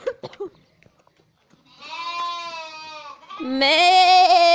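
Sheep bleating twice: a steady call about a second and a half in, then a louder, wavering baa from about three and a half seconds in.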